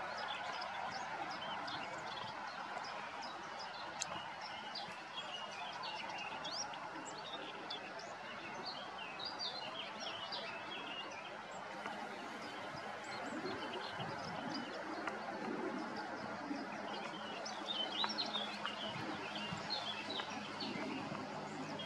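Warbler singing from a perch: long runs of quick, varied chirping notes with a thinner stretch in the middle, over a steady background hiss.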